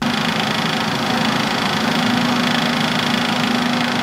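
Kitchen range-hood fan running steadily over the stove: an even, loud hiss with a constant low hum.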